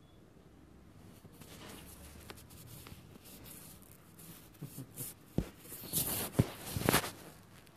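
Handling noise from a hand-held phone's microphone: rubbing and rustling that builds up, then several sharp knocks and scrapes in the second half as the phone is moved.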